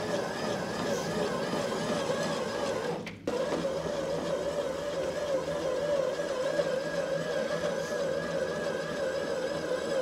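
Vehicle engine running steadily with a whining, slightly wavering hum while it drags a log; the sound drops out for a moment about three seconds in.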